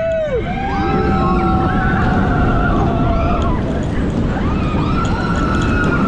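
Roller coaster train running fast along its steel track, a heavy rumble with wind rushing past, while riders let out long held screams: one dies away about half a second in, another is held from about a second in, and a new one rises near the end.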